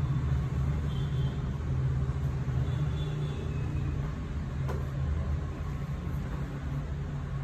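A steady low hum, with one faint click a little under five seconds in.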